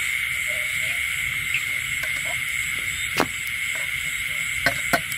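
Steady, high-pitched chorus of night insects chirring in a continuous drone, with a few sharp clicks in the second half.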